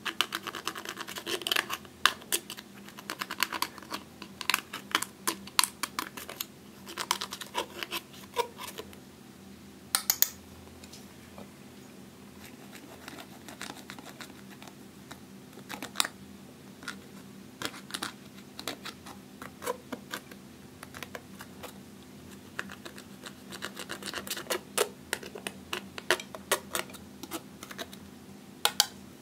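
A thin metal pick scraping and digging pressed eyeshadow out of the pans of a plastic palette: quick runs of small clicks and scratches. They come thick and fast through the first third and again near the end, and fall to scattered single clicks in between.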